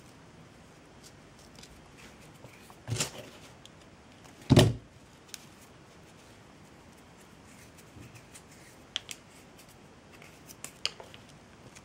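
Small handling noises of craft materials and tools on a work table: a brief rustle about three seconds in, one dull thump, the loudest sound, a moment later, and a few light clicks near the end.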